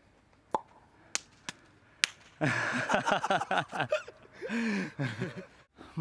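Four short, sharp clicks spread over the first two seconds, then a man's voice, loud, for about three seconds.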